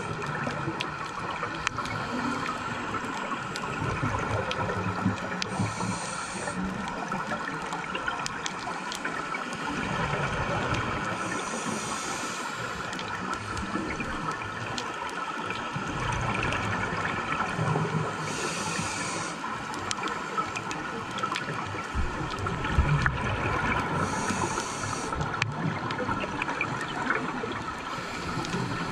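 Scuba diving underwater ambience heard through a camera housing: a short regulator hiss about every six seconds, with bubbling and gurgling of exhaled air between, over a steady watery hum.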